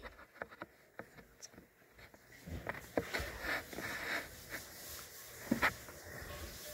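Quiet room with faint scattered clicks, then soft rustling handling noise close to the microphone, with a couple of louder knocks.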